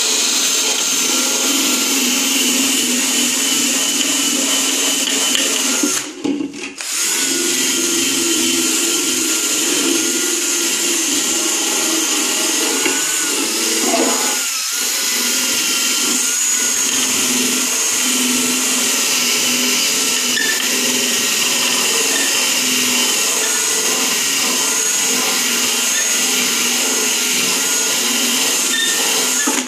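A handheld power tool runs steadily, buffing a plastic tail light lens. It stops briefly about six seconds in, starts again, and cuts off at the end.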